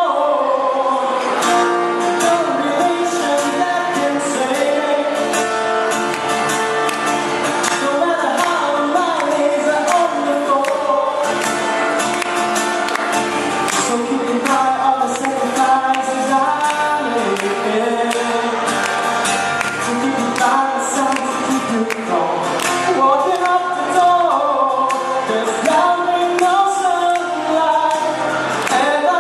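Live pop music: a male singer singing a ballad over instrumental accompaniment.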